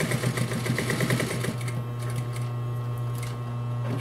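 Consew 230 industrial straight-stitch sewing machine stitching at a fast, even rate that is held down by a small pulley on its clutch motor. The stitching stops about a second and a half in, leaving the clutch motor humming steadily.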